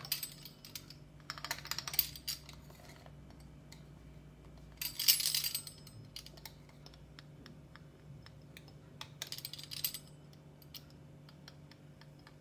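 Pastry wheel rolling through soft dough and clicking against the wooden board underneath. There are three cutting strokes, each a quick rattle of clicks; the middle one is the loudest.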